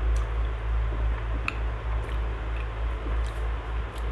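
Close-up chewing and wet mouth sounds of a person eating, with soft squishing of fingers in steamed rice and a few faint clicks, over a steady low hum.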